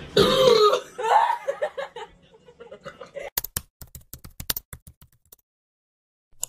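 A woman laughing hard for about two seconds. Then, after a short lull, a rapid run of sharp typing clicks for about two seconds, a keyboard sound effect as text is typed out on screen.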